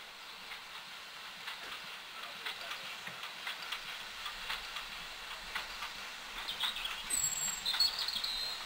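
Steam locomotives, a GWR Large Prairie 2-6-2 tank leading a Manor class 4-6-0, approaching slowly, heard as a faint run of irregular clicks and knocks. A bird whistles near the end.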